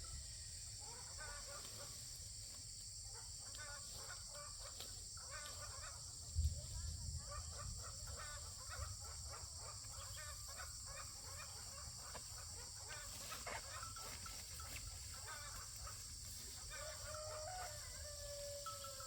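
Chickens clucking in short repeated calls, with a rooster crowing once near the end. A steady high-pitched hiss runs underneath, and there is a single low thump about six seconds in.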